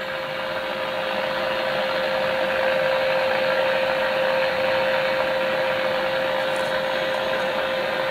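Stalker ST-9F DX CB radio's speaker playing steady receiver hiss with one steady tone through it, growing a little louder over the first couple of seconds. Its audio is working again on a new UPC1182H audio amplifier chip.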